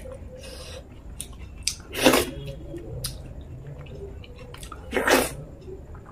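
Close-miked eating sounds from eating curry by hand: soft wet clicks of fingers and food, with two short, loud breathy sounds about two and five seconds in.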